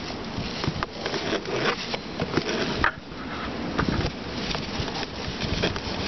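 Garden hose being pushed into an RV's fresh-water fill inlet: irregular rubbing and scraping of the hose against the inlet, with scattered knocks and handling noise.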